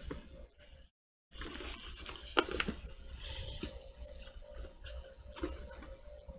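Faint handling sounds of a mini PC's box and accessories being unpacked: soft rustling with a few light clicks and taps. The sound cuts out completely for a moment about a second in.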